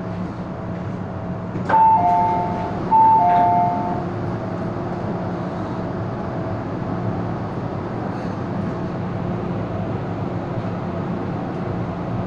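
Door chime of an MTR M-Train car sounding as the doors open: two high-to-low two-note chimes about a second apart, preceded by a click, over the car's steady hum at standstill.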